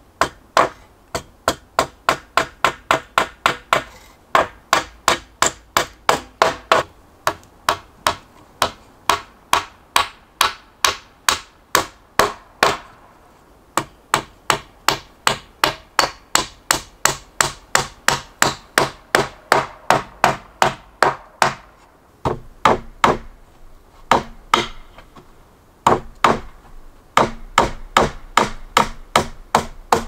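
A hammer drives nails into wooden boards on a log frame, in steady runs of sharp blows at about three a second. Short pauses fall between the runs.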